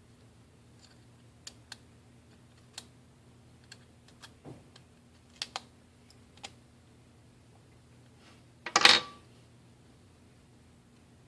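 Light, scattered clicks and taps of small tools and phone parts being handled during a smartphone's reassembly, with one louder short scrape about nine seconds in.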